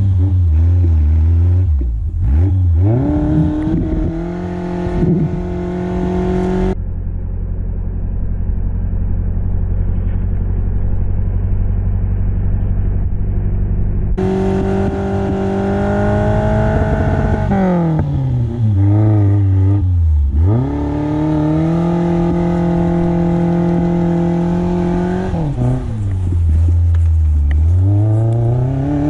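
Suzuki SJ410's engine under load in deep snow, revs falling away and climbing again several times, with steady running between. For several seconds in the middle the sound goes dull and muffled while the engine holds a steady note.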